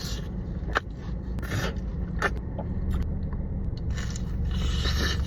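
Scraping and crunching of food being handled, dipped and bitten, in short irregular bursts over a steady low rumble.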